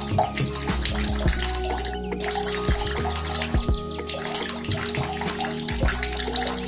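Water running and splashing steadily, over background music.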